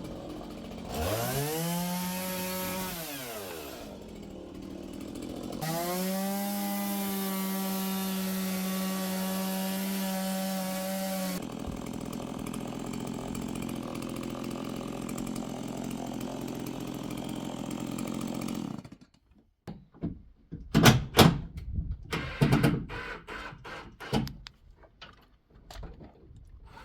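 Chainsaw revved up and back down once, then revved again and held at high speed. It then runs rougher and noisier, as if cutting into wood, before shutting off. Several sharp knocks follow near the end.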